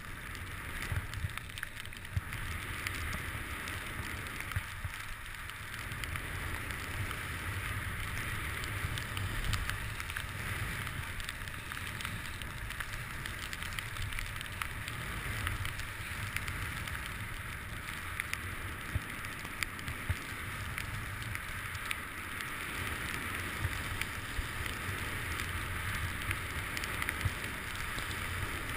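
Skis running and scraping over groomed snow during a downhill run, mixed with wind rushing over the GoPro's microphone. It is a steady hiss with a low rumble and scattered small clicks and ticks.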